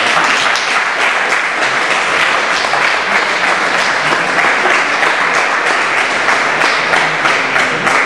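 Spectators clapping and applauding steadily in a large hall.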